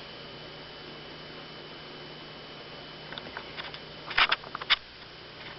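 A cat batting and clawing at a feather toy: a flurry of short scratchy taps and rustles about three seconds in, the loudest two near the end of the flurry, over a steady low hum.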